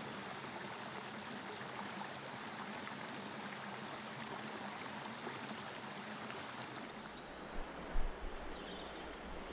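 Steady rush of a small river flowing over rocks. Near the end the sound changes, and two short knocks stand out, the louder about eight seconds in.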